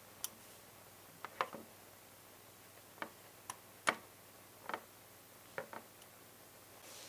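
Small parts of a Bentley scale model car clicking and tapping as gloved fingers press a piece into its engine bay. The clicks are sharp, sparse and irregular, with the loudest about four seconds in.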